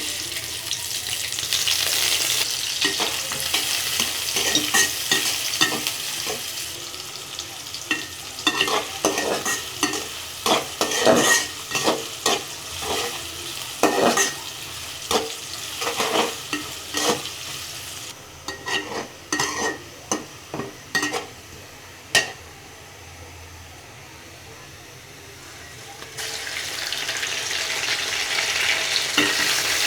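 Food frying in hot oil in a pan with a steady sizzle, while a spatula stirs and scrapes against the pan in a run of short strokes through the middle. The sizzle is loud again near the end.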